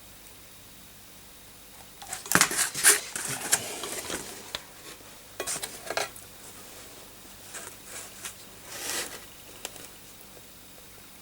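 Metal tools clinking and scraping during solder-pot rework of a motherboard connector, in three clusters of sharp clicks and short scrapes.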